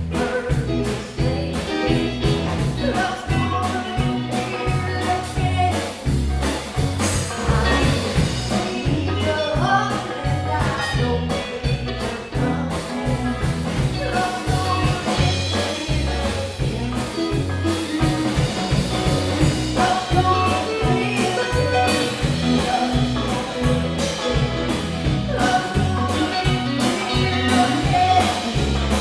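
Live country band playing with a steady beat: a woman singing lead over electric guitars, bass and drums.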